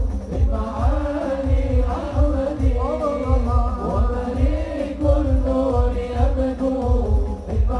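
Sholawat: a man chanting an Arabic devotional song into a microphone, the melody held in long sliding notes, over hadrah drums keeping a steady low beat.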